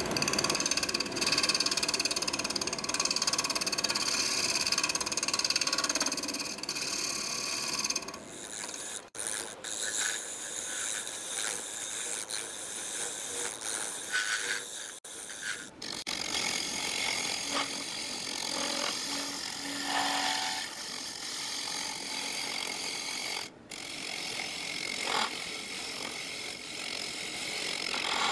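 A gouge cutting the inside wall of a segmented wooden bowl blank spinning on a wood lathe: a steady hissing scrape of shavings being cut, with steady tones underneath. It is louder for the first eight seconds and has a few brief breaks.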